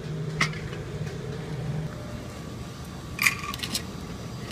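Aluminium beer cans clinking and knocking as a four-pack is handled and set down on a shop counter: a single click near the start, then a quick cluster of sharp metallic clinks a little over three seconds in, over a low hum that stops about two seconds in.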